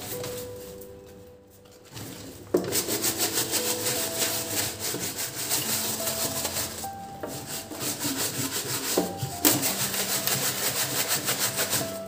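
Stiff bristle brush scrubbing a wet, soapy black bag in a stainless-steel sink, in rapid back-and-forth strokes. The scrubbing starts about two and a half seconds in and breaks off briefly twice.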